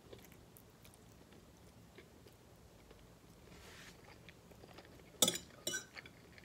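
Soft chewing and mouth sounds of a person eating a mouthful of spaghetti, then two sharp clinks of a fork against the plate a little after five seconds in, the loudest sounds.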